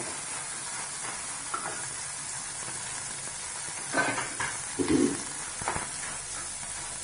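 Cooked rice sizzling in hot ghee and tempered mustard seeds in a kadai as it is stirred with a steel slotted spoon: a steady sizzle, with a few knocks and scrapes of the spoon on the pan about four to six seconds in.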